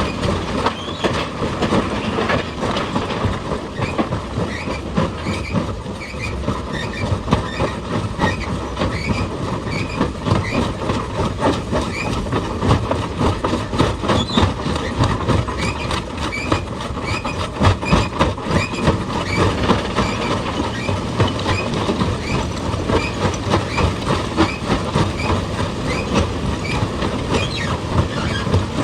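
Heavy machinery working rock: a continuous, dense clatter of rapid metallic impacts over a running engine, with a short high squeak repeating throughout.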